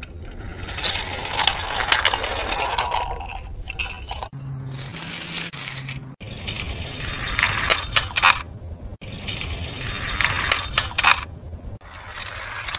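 Die-cast toy cars rolling and rattling down a plastic toy track and clinking into a pile of other toy cars at the bottom, several runs one after another, each a second or two of gritty clatter.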